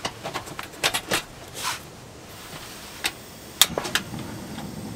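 Portable gas stove being lit: a run of clicks and knocks from its ignition knob, then the burner running with a steady faint hiss. A sharp, loud click comes about three and a half seconds in.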